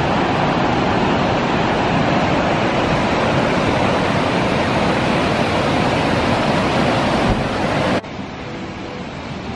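Water released from a concrete dam's outlet rushing and pouring over a low weir into the basin below, a loud steady roar of falling water. About eight seconds in it drops abruptly to a quieter, more distant rush.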